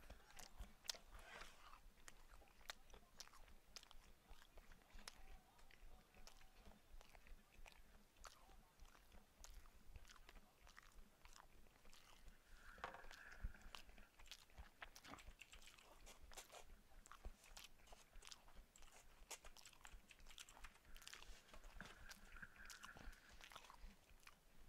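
Faint, close-miked chewing with the mouth closed: many small irregular clicks and smacks of food being chewed.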